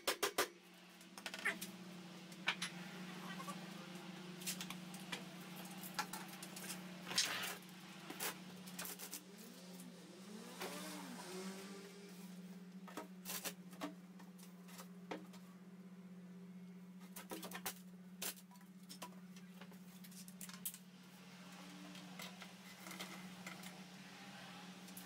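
Scattered clicks, taps and knocks as spiral steel ducting and the extractor's fittings are handled and fitted, with a few short squeaks about ten seconds in, over a steady low hum.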